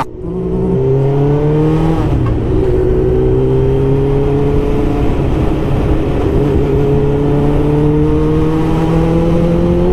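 Suzuki GSX1000 K2 inline-four motorcycle engine running under way. Its note climbs slowly and steadily as the bike accelerates, with a brief break and a small drop in pitch about two seconds in.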